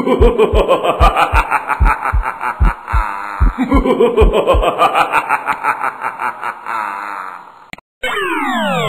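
A cartoon sound effect of snickering laughter over rhythmic low thumps, played through twice in a loop. Near the end it breaks off and a quick series of falling electronic sweeps follows.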